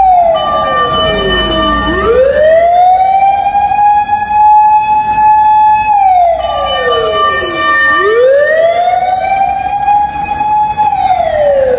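Emergency vehicle's mechanical motor siren cycling: a loud held wail that winds down in pitch over about two seconds, then spins back up to the same high note and holds. It does this twice and starts a third fall near the end.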